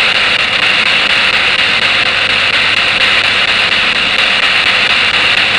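Spirit box hissing with loud, steady radio static.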